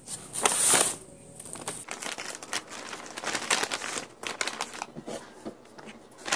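Paper takeout bag rustling and crinkling as it is opened and rummaged through, with a louder rustle about half a second in followed by a run of irregular crackles.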